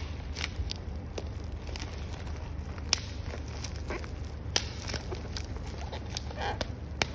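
Handling noise from hands working with small items and packaging: scattered sharp clicks and light rustles at irregular spacing, over a steady low hum.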